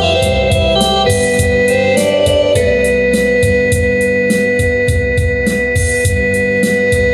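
Electronic organ playing a melody over sustained chords, with a steady built-in rhythm-box beat of crisp hi-hat-like ticks; a long high note is held from about two and a half seconds in.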